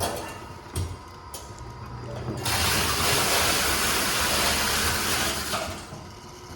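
Box taping machine (carton sealer) running a carton through: a loud, steady rasping noise for about three seconds, after a couple of light clicks.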